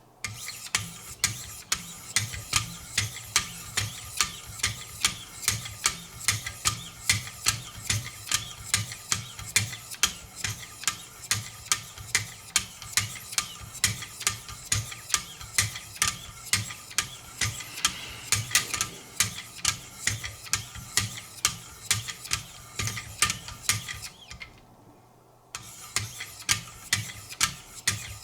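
Knife edge being honed on the 1000-grit stones of a Wicked Edge guided sharpening system: steady, even strokes of abrasive on the steel edge, about two to three a second, with a brief pause about 24 seconds in.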